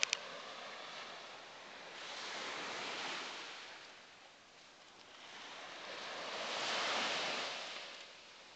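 Small surf washing up a sandy beach, the noise of the wash swelling twice, about two and a half seconds in and again near seven seconds. A few quick sharp clicks sound at the very start.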